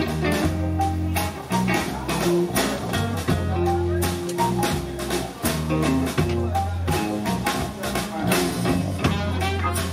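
A live band playing through the PA during sound check: guitar over a steady bass line and drum kit.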